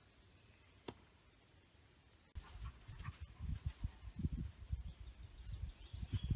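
Outdoor woodland sound: quiet at first, then about two and a half seconds in a low, irregular rumble of wind on the microphone starts suddenly and stays loudest. Small birds chirp over it.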